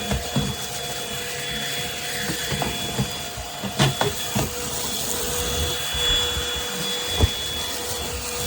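PRETTYCARELIFE cordless stick vacuum running with a steady motor whine, with a few sharp knocks about four and seven seconds in.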